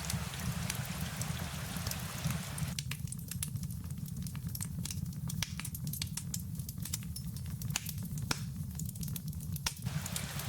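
Rain with a crackling wood fire: sharp irregular crackles over a steady low rumble. The rain hiss cuts out about three seconds in, leaving the fire crackles nearly alone, and comes back near the end.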